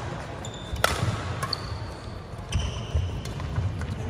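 Badminton rally: a few sharp racket strikes on a shuttlecock, the loudest about a second in, with sneakers squeaking and feet thudding on a wooden court floor.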